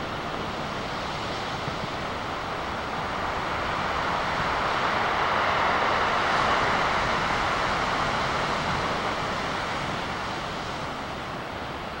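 Big ocean surf breaking: a steady wash of noise that swells from about three seconds in, is loudest around the middle, and eases off near the end.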